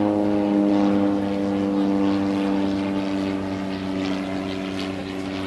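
A propeller-driven aircraft flying past, a steady engine drone that slowly drops in pitch and fades toward the end.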